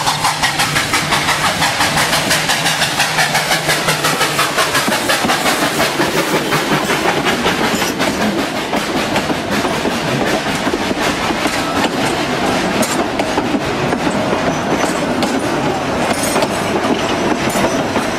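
Steam locomotive chuffing out of a tunnel, its exhaust beating in a quick steady rhythm of about four to five chuffs a second. About eight seconds in, the beat gives way to the passenger coaches rolling close past on the rails.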